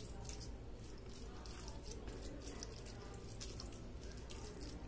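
Rice soaked in rasam being mixed by hand with chicken thokku: faint wet squelching and small sticky ticks.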